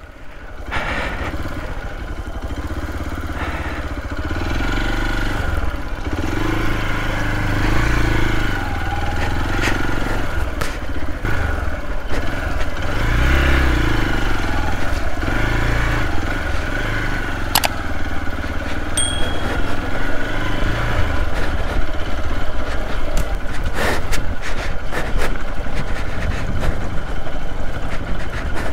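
Hero XPulse 200's single-cylinder engine running as the bike rides over a muddy, rocky trail, its note rising and falling. A few sharp knocks and clatter come through along the way.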